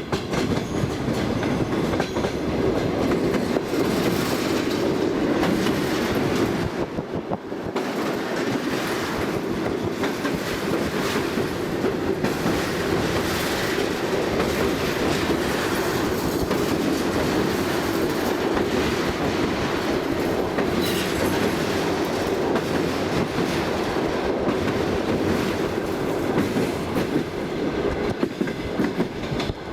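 Passenger train running along the track: a steady rumble with the clickety-clack of the carriage wheels knocking over the rail joints.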